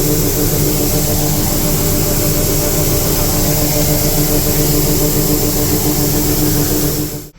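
Steady machine drone with several held tones and a hiss reaching high up, unchanging until it cuts off abruptly near the end.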